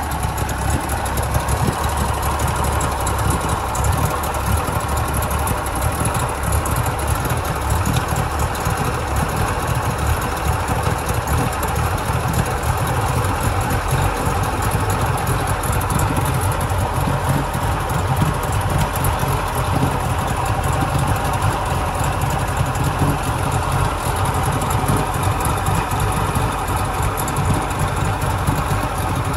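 A 40 hp three-cylinder Mercury outboard engine idling steadily on its newly installed fuel pump, during its first run after the pump replacement.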